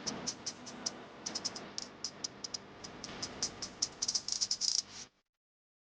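A kitchen utensil clicking and scraping irregularly against a mixing bowl while ingredients are stirred, cut off abruptly about five seconds in.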